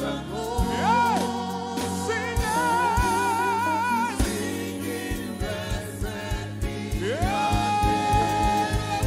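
Gospel praise-and-worship singing: voices holding long, wavering notes over a live band with bass, keyboard and drums, the drums keeping a steady beat in the second half.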